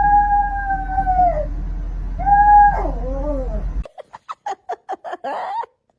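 A cat's long, steady yowl that bends down at its end, then a shorter yowl sliding down in pitch. After that comes a quick run of short, high calls.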